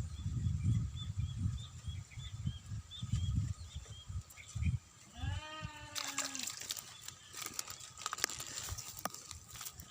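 A goat bleats once, a single call of about a second, about five seconds in. Low rumbling thumps fill the first half, and dense crackling clicks fill the last few seconds.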